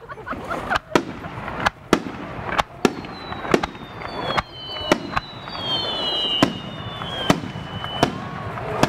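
Aerial fireworks shells bursting in a rapid, uneven series of sharp bangs, more than a dozen in a few seconds. From about three seconds in, high whistling tones glide down and level off over the bangs until near the end.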